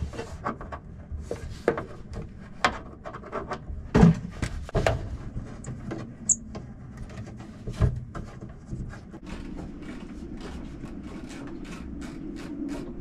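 Hand screwdriver backing screws out of a wooden sliding-door track in a cabinet: irregular small clicks, scrapes and knocks on wood, with two louder knocks about four and eight seconds in. A steady low hum comes in about two thirds of the way through.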